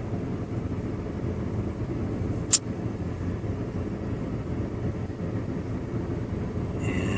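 Steady low rumble of a car's air conditioning and idling engine, heard inside the cabin, with a single sharp click about two and a half seconds in.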